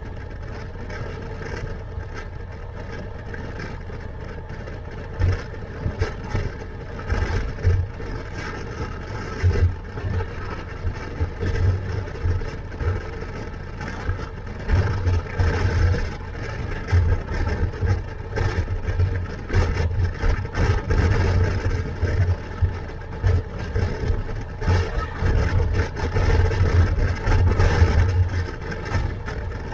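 Motorcycle engine running on the move, with wind rushing over a helmet-mounted microphone. From about five seconds in, uneven gusts of wind buffeting thump through the sound.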